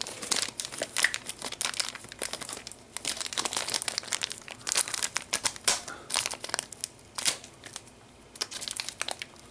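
Packaging being handled and unwrapped, crinkling and rustling with scattered clicks and taps, quieter for a moment near the end.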